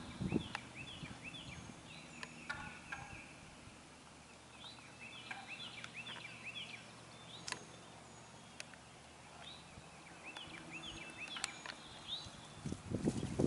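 Wild turkey gobblers gobbling several times in rapid, rattling bursts. A few low thumps come near the end.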